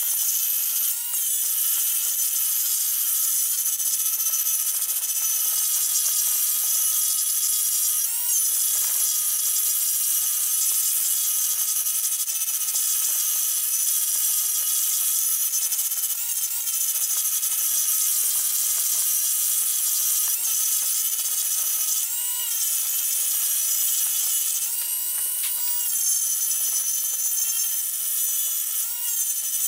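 Handheld rotary tool with a sanding drum running at high speed, sanding Bocote wood handle scales. A steady high whine with a hiss of abrasion dips briefly in pitch several times as the drum is pressed into the wood.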